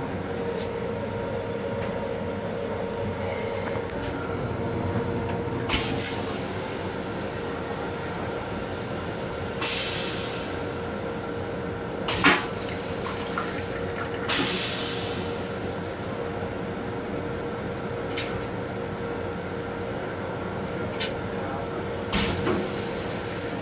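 Train toilet flushing into its stainless-steel bowl: several separate hissing surges of rinse water, with a sharp clack about halfway through, over the steady running noise of a commuter railcar.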